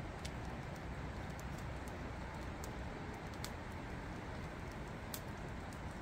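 Firewood burning in a metal fire pit, crackling with scattered sharp pops at irregular intervals over a steady rushing background noise.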